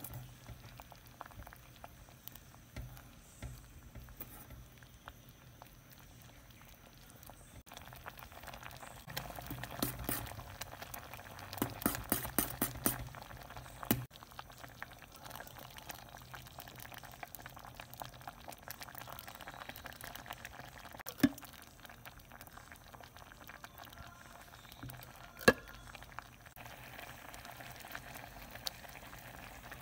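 A pot of sweet corn dessert boiling, with steady bubbling and small pops, busiest about a third of the way in. Two sharp knocks stand out later, the loudest sounds. Near the end a thin stream of liquid is poured into the pot.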